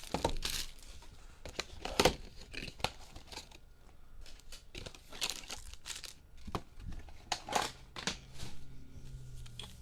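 Foil-wrapped trading-card packs and a cardboard hobby box being handled: irregular crinkling of the wrappers with scattered light taps.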